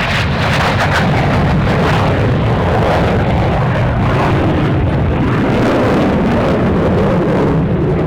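Loud, sustained jet aircraft noise at an air show, holding steady for several seconds with no break.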